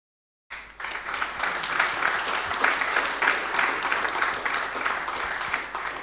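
Audience applauding, a dense patter of many hands clapping that starts about half a second in.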